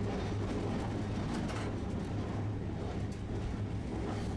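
Tosaden streetcar running, heard from inside the car: a steady low hum of the tram's motors and wheels on the rails, with a few faint clicks.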